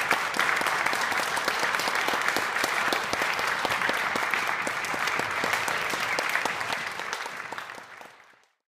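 Audience applauding, a dense even clatter of many hands clapping that fades out near the end.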